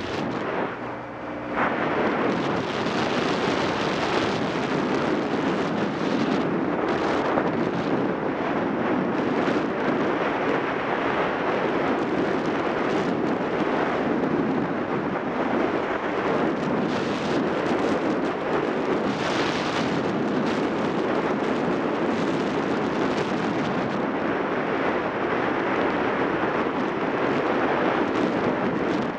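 Wind noise buffeting the microphone of a moving motorcycle, over the Yamaha XTZ750 Super Ténéré's parallel-twin engine. For the first second or so it is quieter and the engine's note comes through clearly, then the wind noise rises and stays steady as the bike gets up to speed.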